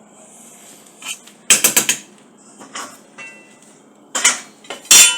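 Cutlery and a serving spoon clattering against dinner plates while food is dished out: a quick run of clinks about a second and a half in, then louder knocks near the end, some leaving a short ring.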